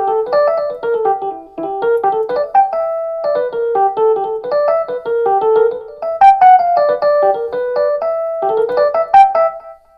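Electric piano sound from a Roland RD08 digital piano, played as a quick run of melodic phrases in the middle register. The playing stops abruptly near the end.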